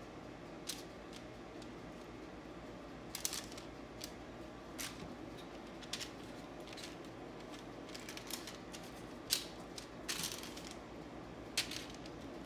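Light, scattered crinkles and taps of parchment paper on a metal baking sheet as pieces of marinated tempeh are set down by hand, about a dozen short irregular clicks over a steady low hum.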